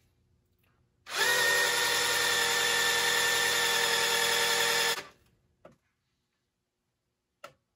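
Cordless drill running for about four seconds, in reverse, turning a Ford small-block's (302/351W) stock oil pump through the distributor hole to prime the engine's oil system. It is a steady motor whine that starts about a second in and stops abruptly, with a short click near the end.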